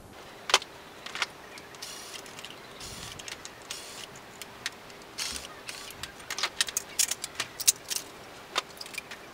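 Metal clicks, clinks and short scrapes as components are pulled off a printer power-supply circuit board and the loose metal parts are handled. One sharp click about half a second in, then scattered scrapes, and a quick run of clinks near the end.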